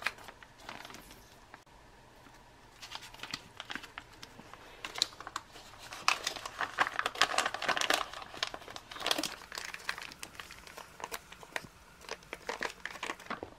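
Foil-laminate retort pouch of curried chicken fried rice being torn open, handled and squeezed out. The pouch crinkles and crackles on and off, busiest about halfway through and again near the end.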